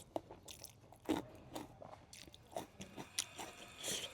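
A person chewing and biting food close to the microphone: a run of irregular short mouth clicks and smacks, the loudest about a second in.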